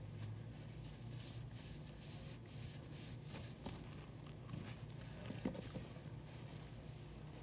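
Faint rustling and scuffing of a cloth rag being wiped over the cut ends of PVC pipes, cleaning them before gluing, with scattered small clicks and one sharper tick about five and a half seconds in, over a low steady hum.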